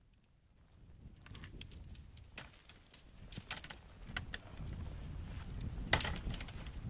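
Tent poles and tent fabric being handled while pitching a tent in snow: a run of small clicks and rustles, the sharpest click about six seconds in. Wind buffets the microphone in the second half.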